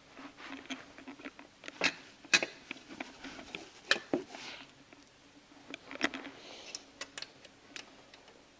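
Metal parts clicking and knocking as an EGR cooler is set by hand against a diesel engine's head and started onto its bolts: scattered light taps with a few sharper knocks.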